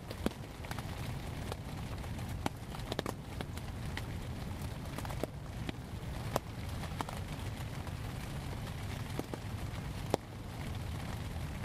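Wind in the trees as a steady low rumble, with scattered raindrops tapping irregularly on the fabric of a Polish army laavu shelter.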